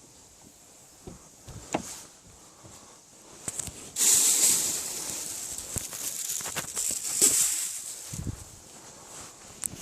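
A rustling, hissing noise that starts suddenly about four seconds in and lasts about four seconds, with a few sharp clicks and knocks before and after it.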